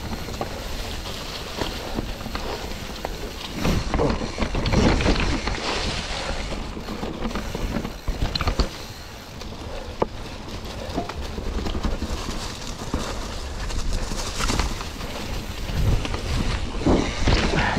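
Mountain bike ridden over rocky singletrack: tyres rolling and crunching over rock and the bike rattling, with a low rumble throughout and several sharp knocks from hard hits on rocks.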